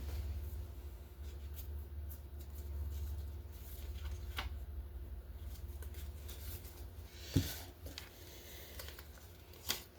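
Small handling noises, light clicks and rustles of items and packaging being moved by hand, over a steady low hum, with one sharper knock a little past seven seconds in.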